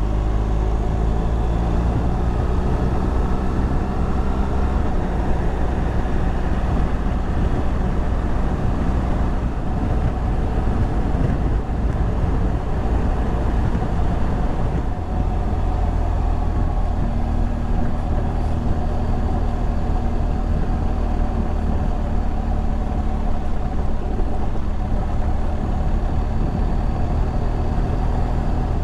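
BMW R1200GS Rallye's boxer-twin engine running at road speed with heavy wind noise at the helmet. The engine note rises over the first few seconds as it pulls, then holds steady.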